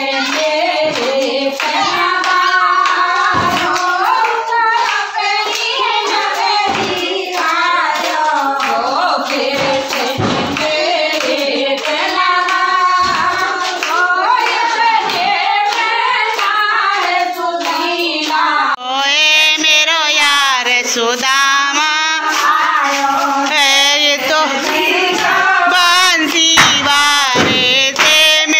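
A woman's singing, a folk song for dancing, with hand claps; the sound changes abruptly about two-thirds of the way through, where the recording cuts to another take of the song.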